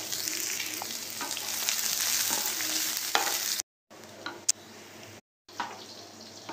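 Chopped onion and green chillies sizzling as they fry in hot mustard oil in a pan, stirred with a wooden spatula. The sizzle is loud at first, cuts out twice to silence for a moment, then goes on quieter with a sharp click or two from the spatula.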